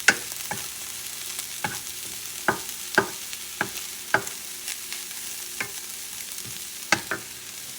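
Cauliflower rice frying in oil in a non-stick pan with a steady, faint sizzle, while a utensil stirs it, knocking and scraping against the pan about a dozen times at uneven intervals.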